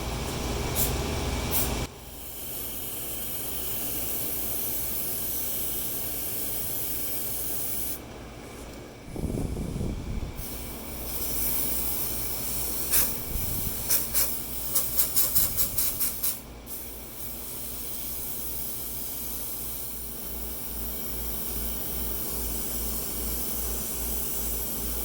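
Steady hiss of running air conditioners. A low thump comes about nine seconds in, and a quick run of about a dozen sharp clicks or taps follows a few seconds later.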